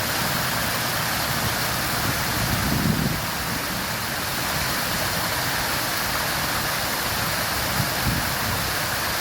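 Strong waterfall: a steady rush of falling water, with a brief low rumble swelling about three seconds in.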